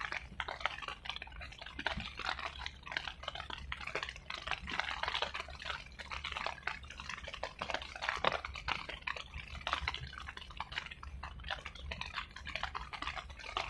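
Irregular patter and splashing of water, dense crackling drops, over a steady low rumble of wind on the microphone.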